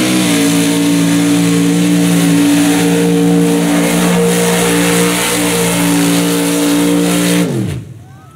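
Mud bog truck's engine held at high, steady revs as it drives through the mud pit. About seven and a half seconds in, the revs fall away quickly and the sound drops off.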